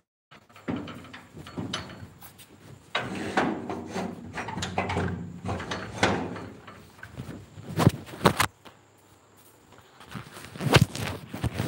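Irregular knocks, bumps and scrapes, like things being handled and knocked together, with the sharpest bangs about eight seconds in and again near the end.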